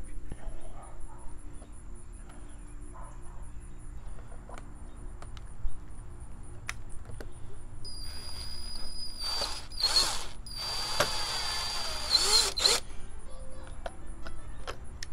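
Power drill run in two bursts of about two seconds each, with a short pause between them, boring holes through vinyl siding into the wood behind it. The motor pitch holds steady and dips slightly as the second burst ends.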